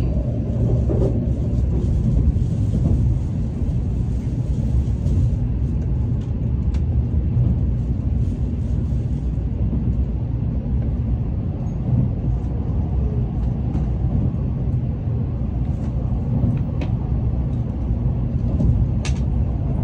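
Steady low rumble of a Nozomi Shinkansen bullet train running, heard from inside the passenger cabin, with a few faint clicks.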